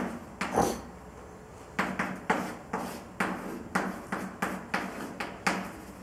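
Chalk writing on a blackboard: a run of sharp taps and short scratchy strokes, several a second, with a pause of about a second near the start.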